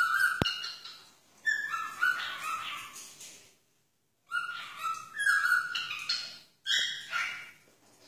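Cockatiel calling and chattering in four bursts of wavering, squawky calls with short pauses between them. A single sharp click comes near the start.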